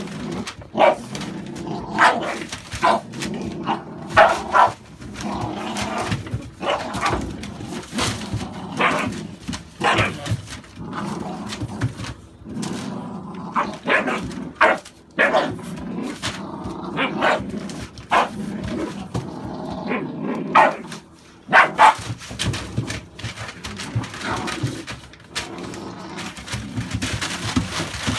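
A pair of American Staffordshire bully puppies play-fighting and tugging at a cloth, growling and giving short yappy barks over and over, with newspaper bedding rustling under their paws.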